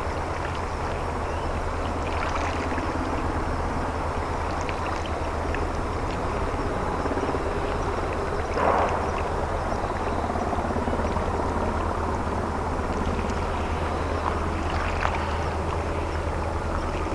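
Small naval vessel's diesel engine running steadily with a constant low hum and wash noise as the boat comes into port, with a few brief sharper sounds at about 2, 9 and 15 seconds.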